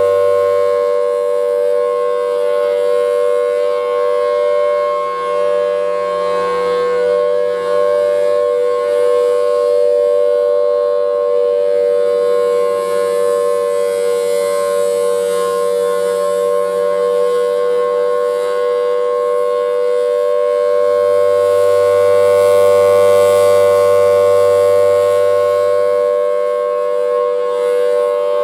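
Federal Signal Thunderbolt 1000AT tornado siren sounding its steady alert signal, two close flat-pitched notes held together. The loudness swells and fades slowly as the rotating siren head turns.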